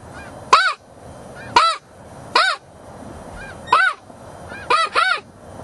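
Snow goose calls: six loud, high yelps about a second apart, each rising then falling in pitch, two in quick succession near the end. Fainter calls of more geese sound between them.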